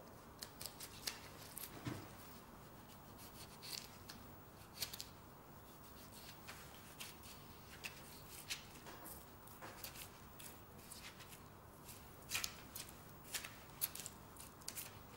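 Butcher's knife cutting and scraping through fat on a beef sirloin: faint, short, irregular scratching strokes, several louder ones near the end.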